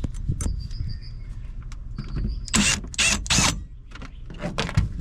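Clicks and knocks from removing a light's screws and working an RV wall panel loose, with three loud scraping rasps of the panel about two and a half seconds in.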